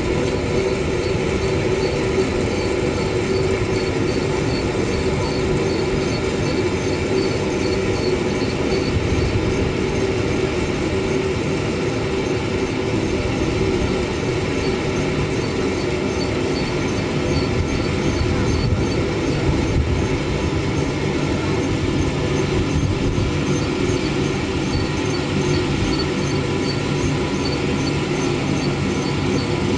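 Waste-tyre pyrolysis plant machinery running: a steady mechanical hum with a constant tone and a light, regular ticking.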